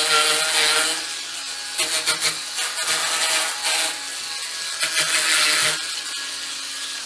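Bosch UniversalBrush cordless power scrubber running with its brush head pressed on a foam-covered soap holder. A steady motor whine is heard in the first second, then a rougher, scratchy scrubbing noise that eases just before the end while the motor keeps running.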